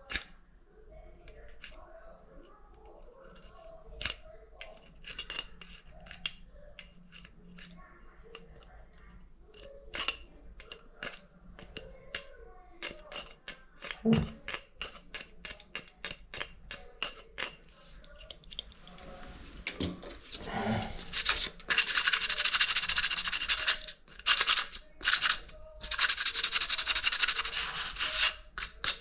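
Scattered small clicks and taps of handled hardware, then two long spells of loud rubbing against a hard surface about two-thirds of the way in and near the end.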